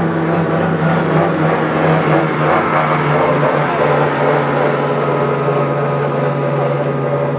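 Racing powerboat's outboard engine running flat out at high speed, a loud steady drone whose pitch drops a little about two and a half seconds in as the boat goes past.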